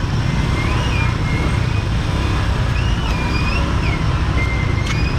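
Busy street traffic outside a market: a steady low rumble of engines and road noise, with faint sliding higher tones over it.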